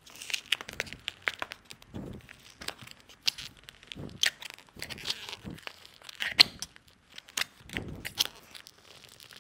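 Double-sided tape tearing and plastic crackling as a thin blade pries a plastic armrest lid away from its leather-covered pad, in irregular crackles and clicks with a few duller knocks.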